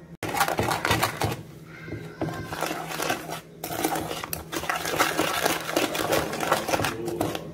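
Spoon scraping and knocking rapidly against the bottom and sides of a metal saucepan, stirring powdered Cremogema and a little water into a thick paste, with two short pauses.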